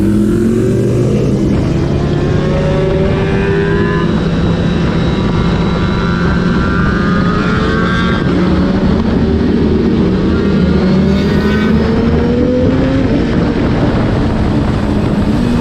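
Superbike engine running under way, its revs climbing in several long pulls.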